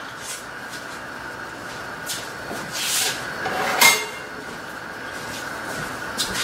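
Kitchen utensils and cookware being handled: a few knocks and a clink, the sharpest about four seconds in, over a steady faint hum.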